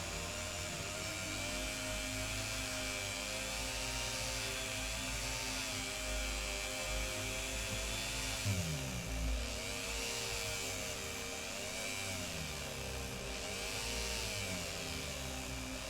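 Powered wire brush spinning against a diecast metal car body to strip it, the motor whine dipping and recovering again and again as the brush is pressed on and eased off.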